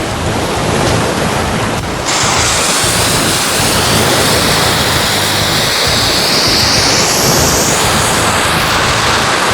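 A loud, steady rushing noise. About two seconds in it steps up, turning brighter and hissier, with a slow swirling sweep in its upper part.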